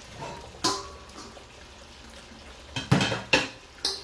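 Metal kitchen utensils clinking against cookware: one knock under a second in, then a quick run of about four sharp clinks near the end.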